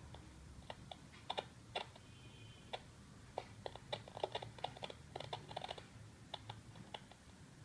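Irregular light clicks and taps, singly and in quick clusters, like keyboard typing, over a faint low hum.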